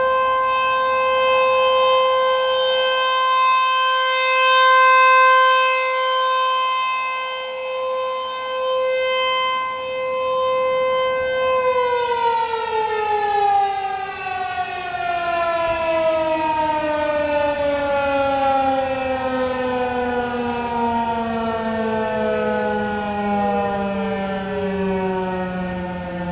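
Fulton (American Signal) T-128 AC/DC rotating civil defense siren sounding its steady alert tone at about 519 Hz, swelling and fading as it rotates. About 12 seconds in it winds down, the pitch falling steadily and slowly. In the last few seconds two other town sirens can be heard winding down as well.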